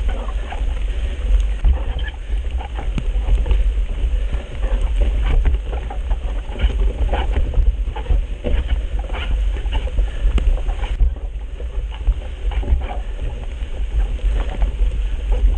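Wind buffeting the microphone with a heavy, constant low rumble, over many scattered small clicks and crackles from the trail and the moving bike.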